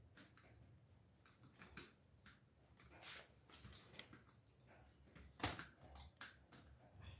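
Near silence: room tone with a few faint scattered clicks and one sharper click about five and a half seconds in.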